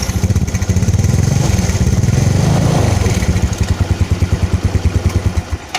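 Motorcycle engine running through its stock, unmodified exhaust. It is revved up in the middle, then drops back to an even putting idle of about ten beats a second.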